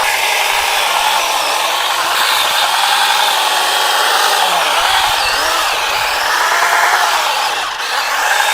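Small 21-volt battery-powered chainsaw running and cutting through wood, its motor whine wavering up and down in pitch as the chain bites, with a brief dip about eight seconds in.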